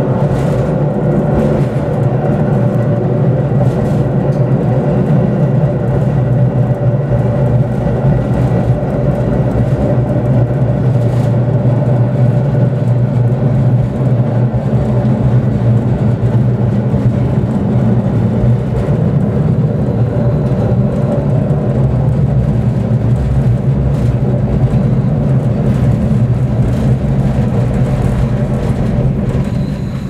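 KiHa 40 diesel railcar under way: a steady, loud diesel engine drone mixed with wheel-on-rail running noise.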